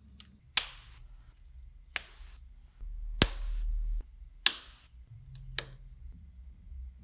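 Red Lego Technic plastic beams clicking as they are pressed and snapped together by hand: about six sharp separate clicks, the loudest a little over three seconds in.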